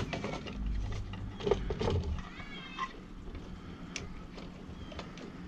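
Plastic parts of a car vacuum clicking and knocking as they are handled and fitted together, with a brief wavering squeak about two and a half seconds in.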